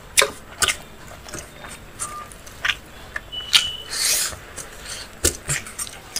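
Close-up eating sounds: fingers working rice and curry against a steel plate, then chewing a handful, with irregular wet clicks throughout.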